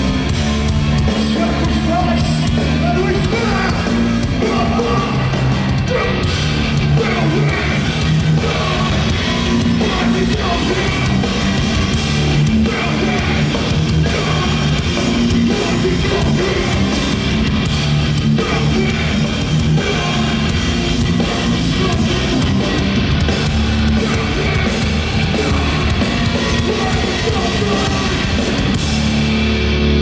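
Live metalcore band playing loud: distorted electric guitars, drum kit and a singer's vocals, heard from within the audience.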